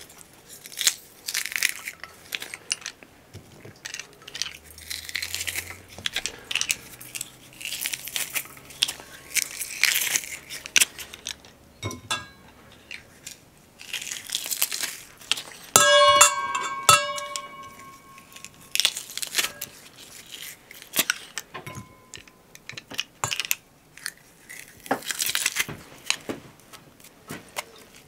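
Kitchen food-prep handling noises: irregular rustling, crunching and scraping as ingredients for sausage are worked by hand in bowls. About halfway through a bowl gives one ringing clink.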